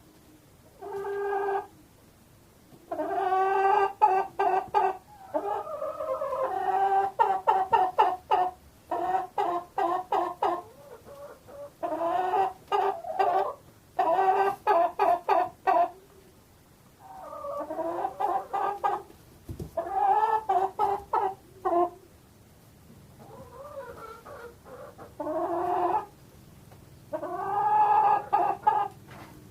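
Hens clucking in repeated bouts of quick, pitched clucks, each bout lasting a second to a few seconds, with short pauses between.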